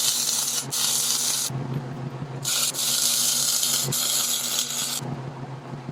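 Wire-feed (MIG) welder arc sizzling and crackling on steel plate in two runs: about a second and a half, a short pause, then about two and a half seconds more, over a steady low hum.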